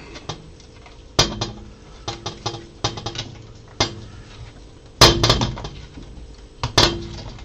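3D-printed plastic parts and alignment dowels clicking and knocking as they are handled and fitted together. The knocks are irregular, with the loudest clatter about five seconds in and another sharp knock near the end.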